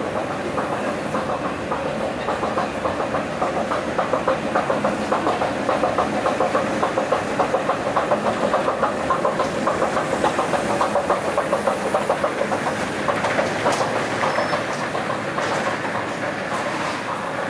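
Subway station escalator running, its moving steps and chain giving a fast, even mechanical clatter that grows louder toward the top landing and then fades.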